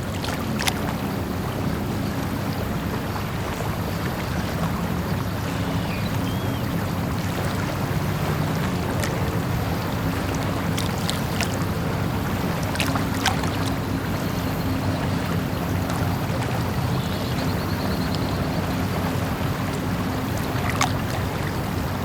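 Lake ambience: water lapping with a steady low rumble underneath, and scattered small sharp ticks and splashes.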